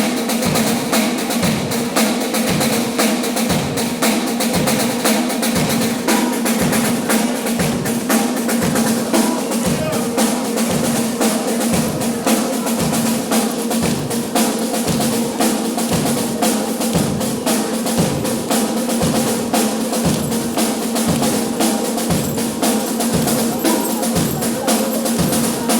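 Percussion band playing a steady march beat: bass drum hits about once a second under continuous snare drum rolls and strokes.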